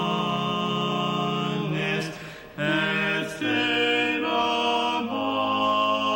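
Male voices singing slow sacred chant in long held notes that move step by step in pitch, with a break for breath about two seconds in.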